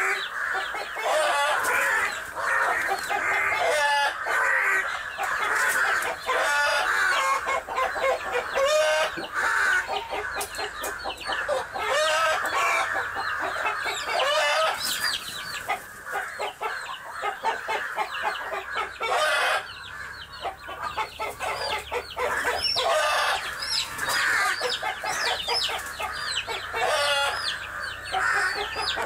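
Mother hen clucking and squawking over and over in alarm as she defends her chicks from a crow. In the later part, thin high peeps of chicks join in.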